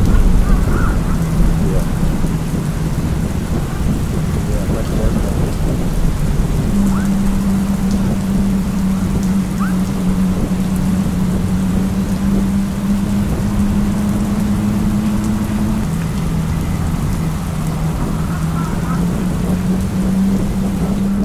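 Rain and a heavy low wind rumble on the microphone of a camera riding along on an e-bike in a rainstorm. Under it a steady low hum steps up in pitch about seven seconds in and drops back near sixteen seconds.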